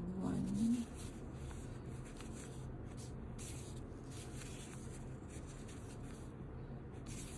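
Soft, irregular rustling and rubbing of yarn drawn over the fingers and a crochet hook working stitches, over a steady low room hum. A brief voice sound comes right at the start.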